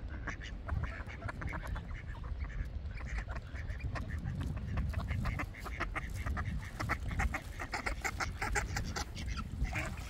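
A group of ducks quacking, with many short calls overlapping in rapid succession, over a low background rumble.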